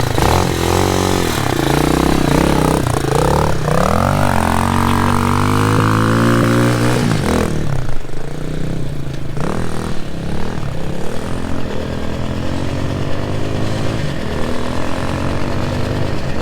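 Hawk 250 dirt bike's single-cylinder four-stroke engine revving as the bike is ridden away. Its pitch climbs steadily for a few seconds, drops back about seven seconds in, then runs at lower, wavering revs.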